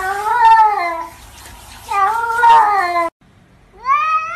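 Domestic cats meowing: two drawn-out meows about a second apart, each rising then falling in pitch. Then, after a short gap, a second cat gives a long meow that slides up at its start.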